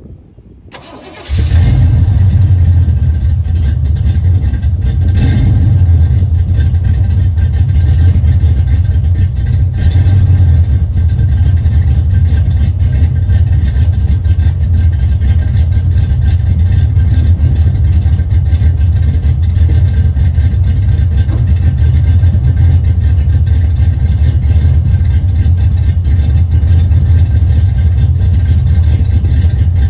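Vortec 383 stroker small-block V8 in a 1978 El Camino starting: a brief cranking sound, then it catches about a second in and settles into a steady, deep idle, with a few small rises in level in the first ten seconds.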